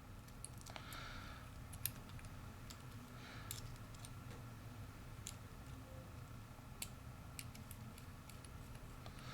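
Faint, irregular small metallic clicks from a lock cylinder's retaining cap being screwed back on while its retaining pin is held down, with one sharper click a little under two seconds in.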